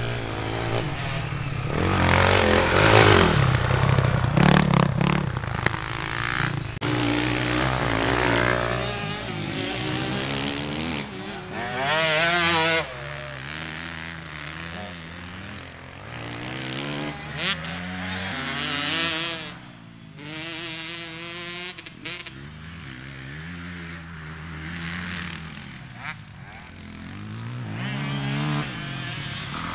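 Dirt bike engines revving on a motocross track, the pitch rising and falling over and over with throttle and gear changes as bikes ride past, loudest a few seconds in.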